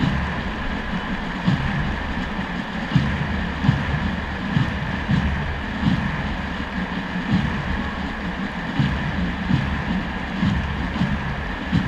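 Steady roar of a large stadium crowd, with wind buffeting the microphone and a dull low thump recurring about every three-quarters of a second.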